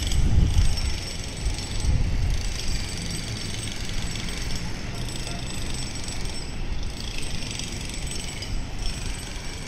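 Wind buffeting the microphone in low rumbling gusts, strongest about half a second in and again around two seconds in, over a steady faint high hiss.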